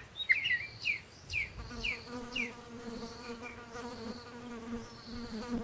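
Bee buzzing steadily, a low even drone that comes in about a second and a half in. Before it comes a run of short, high, falling chirps, about two a second.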